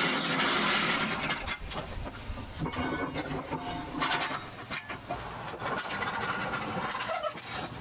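Rusty steel forklift fork being handled, scraping along other steel for the first second or so, then a run of irregular knocks and rubbing as it is shifted.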